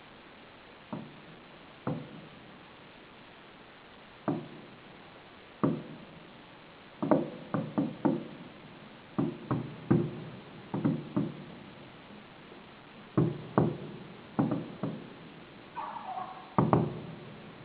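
Fireworks shells bursting: sharp bangs with short rumbling tails, a few spaced seconds apart at first, then coming in quick clusters of several bangs a second from about seven seconds in.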